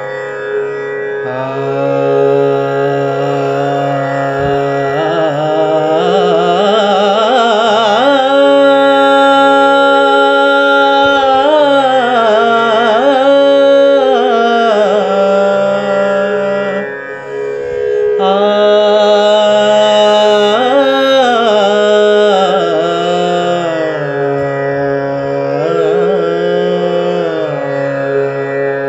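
Indian classical music: a gliding, ornamented melodic line over a steady held drone, with a brief pause in the melody about two-thirds of the way through.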